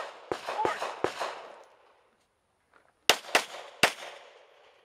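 Six gunshots in two strings of three: three quick shots in the first second, a pause of about two seconds, then three more, each trailing off in echo.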